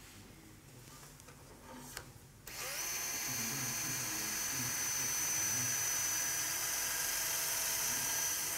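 Surgical power drill starting about two and a half seconds in, spinning up and then running steadily with a high whine as it drills a screw hole in the pelvis for the sacroiliac plate.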